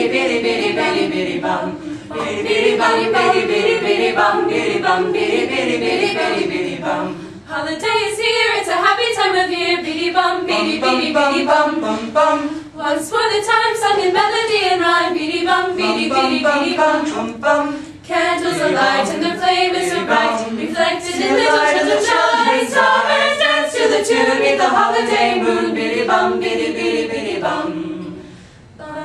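A small mixed-voice high school a cappella group singing unaccompanied in harmony, with no words the recogniser could catch. The phrasing breaks briefly about 7 and 18 seconds in, and the singing falls away near the end.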